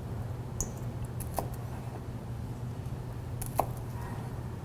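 A few light clinks of kitchen utensils against dishes, two of them ringing briefly, over a steady low hum.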